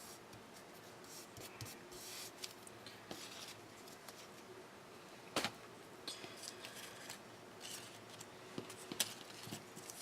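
Soft rustling and scraping of paper being handled for a papercraft page, with a sharp click about five and a half seconds in.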